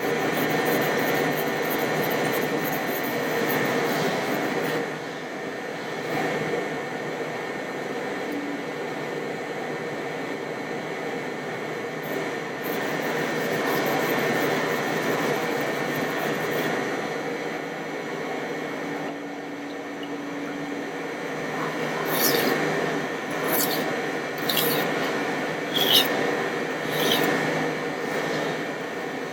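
Kitchen knife blade being stroked back and forth on a whetstone, a steady scraping. Several sharper strokes come about a second apart near the end.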